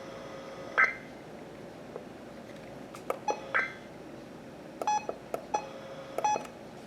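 Faint radio hiss broken by a few short electronic beeps and clicks: one about a second in, two more past the middle, and a quick cluster near the end.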